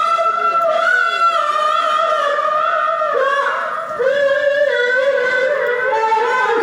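A high voice singing long held notes that waver and slide in pitch in a melismatic style. The pitch steps down about four seconds in, and the voice runs on.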